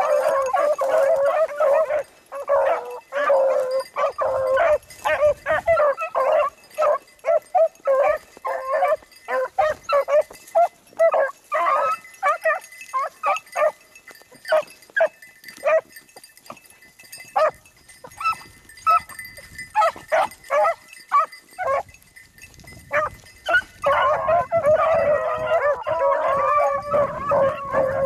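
A pack of beagles baying, several hounds giving tongue at once, typical of hounds running a rabbit's scent line. The chorus thins to scattered single barks and yelps through the middle, then swells back into full overlapping baying near the end.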